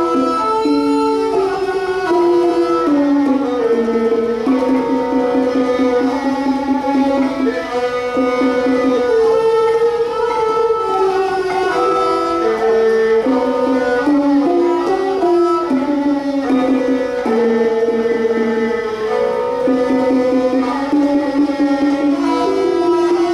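A Thai classical duet-trio: a ranat ek, the boat-shaped Thai wooden xylophone, is struck with padded mallets, often in fast rolls. Bowed Thai two-string fiddles carry the melody with it in held notes that move up and down step by step.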